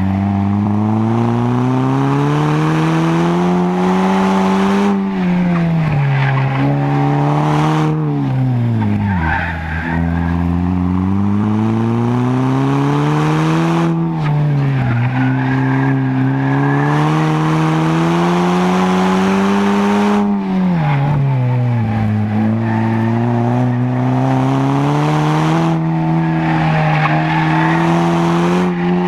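Car engine heard from inside the cabin on an autocross run, its revs climbing steadily and then dropping sharply about five times as the driver accelerates and brakes between cones. Tires squeal at moments in the turns.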